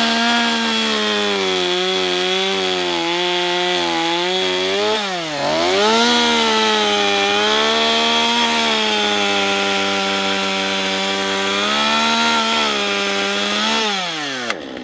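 Stihl two-stroke gas chainsaw at full throttle, sawing through a log in a down cut and then an up cut. The engine pitch dips briefly about five seconds in between the cuts, comes back up, and falls as the throttle is released near the end.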